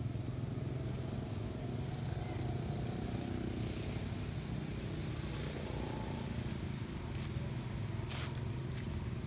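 Steady low engine hum, like a motor vehicle idling, with a brief rustle about eight seconds in.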